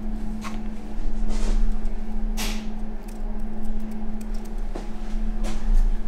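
Steady low kitchen hum with a few short, sharp clicks and knocks from things being handled.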